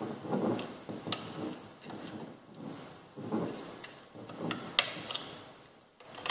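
Small clicks and soft rubbing from a handheld thermal camera's SD card slot and plastic battery compartment cover as an SD card is pushed into place, with a quick run of sharp clicks near the end.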